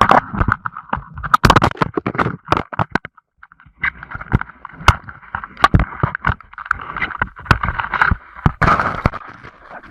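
Irregular knocks, scrapes and rustling as a person shifts about and handles gear on ice, with a gap of about a second roughly three seconds in.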